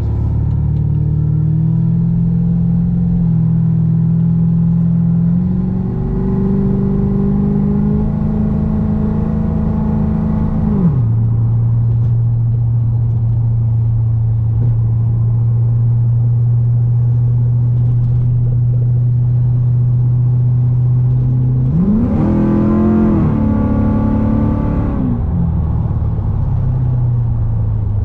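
Pontiac GTO's cammed 6.0 L LS2 V8, running through an exhaust with long-tube Cook's mid pipes. Engine speed climbs in steps for about ten seconds, then falls away and holds steady. Late on it rises and falls once more, then settles lower.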